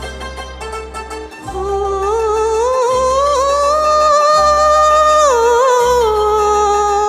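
Backing music on keyboard over a pulsing bass; about a second and a half in, a woman's voice enters on one long sustained sung note that rises, is held with vibrato and falls back near the end.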